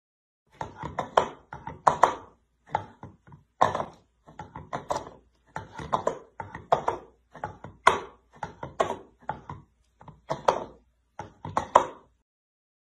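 A cat banging a plastic bowl against a hard floor with its front paws: an irregular run of knocks, roughly one or two a second, stopping near the end.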